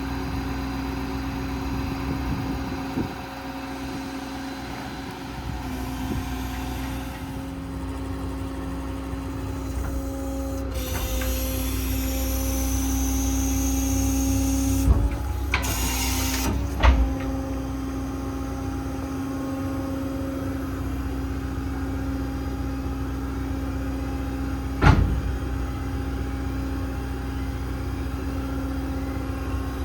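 Ford 6.7 Power Stroke diesel idling with a steady hum, joined partway through by a few seconds of hiss and then a short loud burst of rushing noise, with a few sharp clicks.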